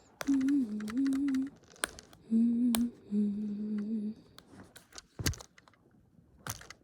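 Wordless vocal sounds, three held hum-like notes, while working at a stuck phone battery, with several sharp clicks and taps from handling the phone.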